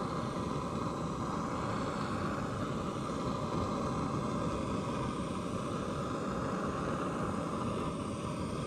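Small BRS gas-canister backpacking stove burner running with a steady, even hiss under a nonstick frying pan as a pancake cooks.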